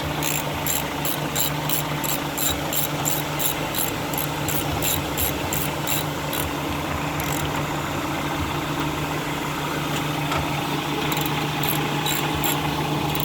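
2013 Kia Sportage engine idling steadily with the A/C compressor running. Over it a tool clicks sharply about three times a second for the first six seconds and again briefly near the end, typical of a ratchet tightening the engine guard's fasteners.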